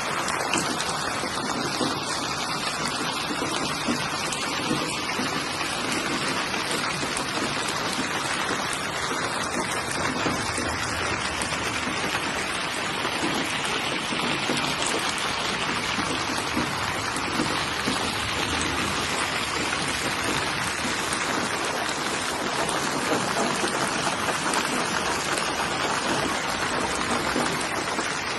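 Steady rainfall: a dense, even wash of falling drops that keeps the same level throughout.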